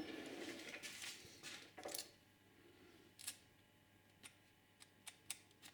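Faint handling noise for about two seconds, then half a dozen light, isolated clicks spaced irregularly.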